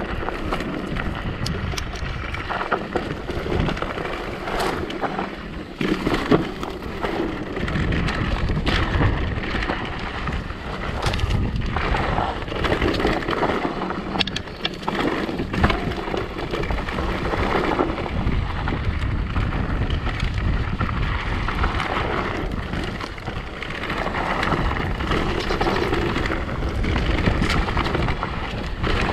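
Electric mountain bike being ridden over a rough trail: wind buffeting the microphone over a low tyre rumble, with frequent knocks and rattles from the bike over bumps.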